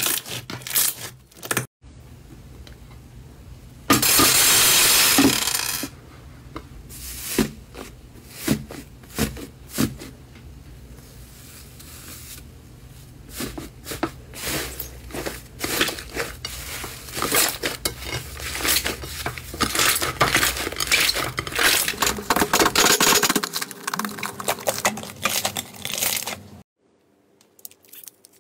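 Slime being kneaded, pressed and pulled apart by hand: a dense string of sticky pops, clicks and crackles, with a loud rough tearing stretch lasting about a second and a half, starting about four seconds in.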